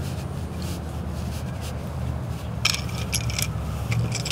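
Kente cloth rustling and rubbing as it is twisted and tied into a headwrap, with a cluster of short scratchy rustles from about two and a half seconds in. A steady low rumble runs underneath.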